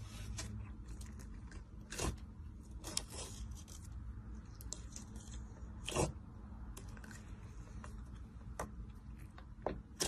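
Fluffy white slime and glossy clear slime being squished and pressed by hand into a plastic jar, making scattered soft clicks and pops, the loudest about two seconds and six seconds in, over a low steady hum.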